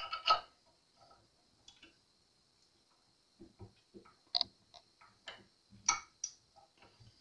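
Small scattered clicks and ticks of the metal tuning machines on an acoustic guitar's headstock being worked loose by hand for removal. Two sharper clicks at the very start, a pause, then more light ticks from about three and a half seconds in.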